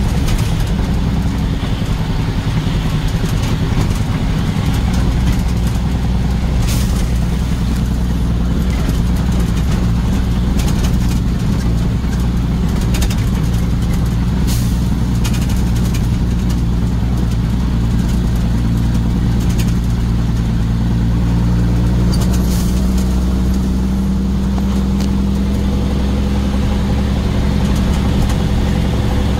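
Motor vehicle engine running steadily, with a few brief clicks or rattles over it.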